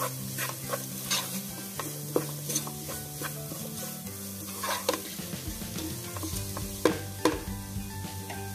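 Wooden spatula stirring and scraping sliced onions in a nonstick frying pan, with a dozen or so irregular knocks of the spatula against the pan and a sizzle of frying underneath. The onions are being sautéed, being mixed again after the salt went in.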